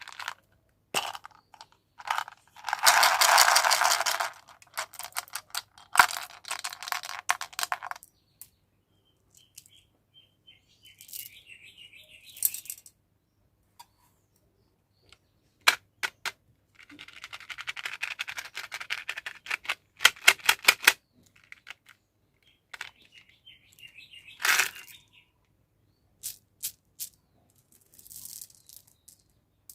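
Candy packets being crinkled and torn open, in two longer rustling bursts, with sharp clicks of small hard-shelled candies like Skittles and M&M's dropping onto a hard surface.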